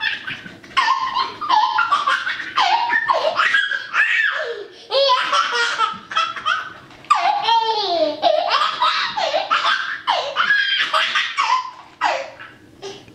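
A toddler laughing in repeated high-pitched bursts of belly laughs and giggles with short pauses between, quieting near the end.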